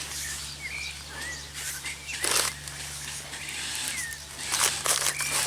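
Birds chirping: several short, separate calls over a steady low hum, with a brief rustle or clatter about two seconds in and a few more near the end.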